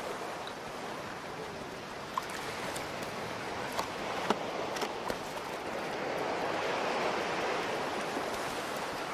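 Surf washing up onto the beach: a steady rush of water that swells about halfway through, with a few faint short clicks over it.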